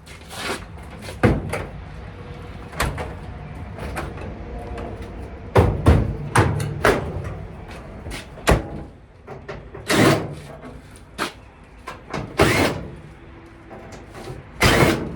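Irregular knocks, clunks and sliding scrapes of a clothes dryer's sheet-metal cabinet and parts being handled as it is taken apart, about a dozen separate knocks.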